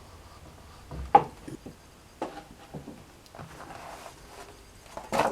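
Workbench handling sounds: a sharp knock about a second in and a louder one near the end, with a few clicks and light rubbing between, as leather and a cutting tool are moved and set down on a board.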